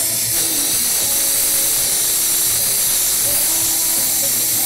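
Hand-held glassworking torch flame hissing steadily as it heats a borosilicate bong joint, with faint music underneath.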